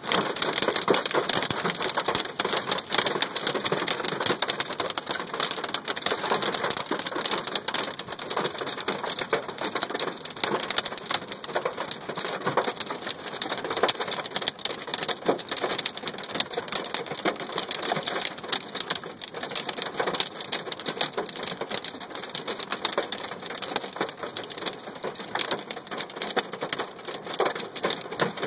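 Hail and rain falling hard, with hailstones striking surfaces in a dense, steady clatter.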